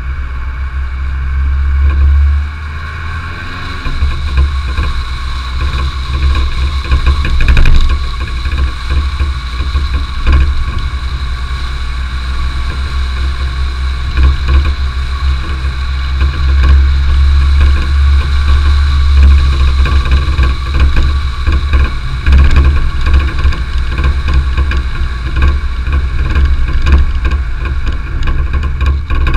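A car driving along a gravel road: the engine runs steadily under a constant rough tyre and road noise, with a heavy low rumble of wind buffeting on the microphone.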